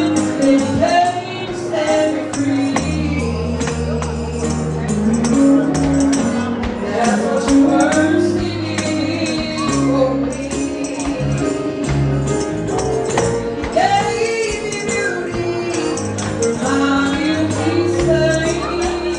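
Music with singing and a tambourine keeping the beat over held low bass notes.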